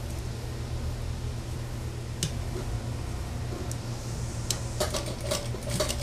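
Industrial sewing machine with its motor humming steadily while fabric is fed under the presser foot, with a sharp click about two seconds in and a quick run of clicks near the end.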